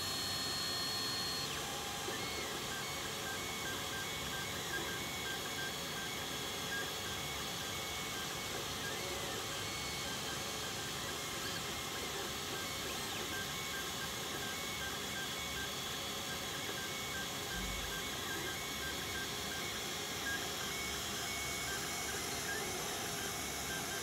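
Alfawise U30 3D printer printing: its stepper motors give runs of short, high whining tones as the print head and bed move, over a steady fan hiss. A higher whine is held for the first second or so.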